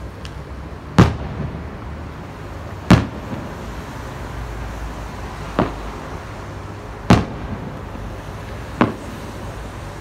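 Distant aerial firework shells bursting: five sharp bangs at uneven intervals, the loudest about one and three seconds in, over a steady low background rumble.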